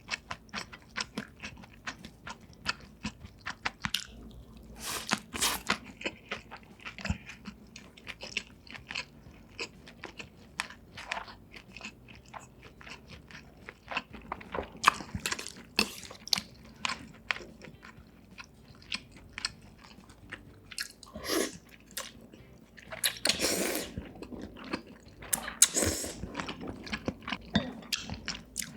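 A person eating close to the microphone: steady chewing with many small crisp clicks and crunches, and a few longer, louder eating sounds scattered through.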